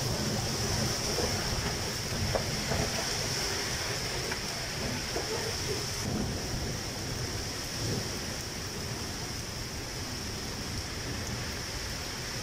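Rain falling steadily in a thunderstorm, a continuous hiss, with a low thunder rumble dying away over the first few seconds.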